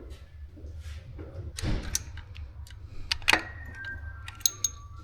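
Metal tools and engine parts clinking and clicking during hands-on work on the timing chain assembly. A few sharp metallic taps ring briefly, over a steady low hum.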